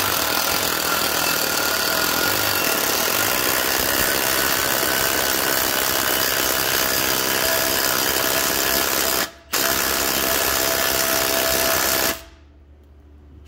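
Impact wrench hammering steadily as it runs up the threaded adjusting rod to tension the fan belts. It breaks off briefly about nine seconds in, then stops about twelve seconds in.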